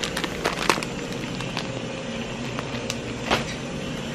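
Plastic instant-seasoning packets being handled: scattered light crackles and clicks over a steady low hum.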